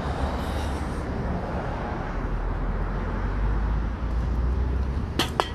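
Street traffic: a steady rumble and hiss of passing cars. A few sharp clicks come near the end.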